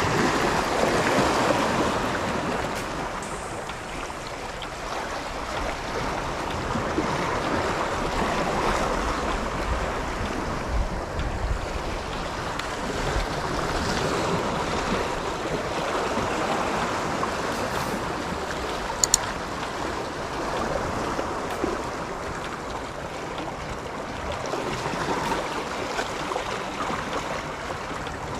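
Sea waves washing against shore rocks, swelling and receding every few seconds. A single sharp click comes about two-thirds of the way through.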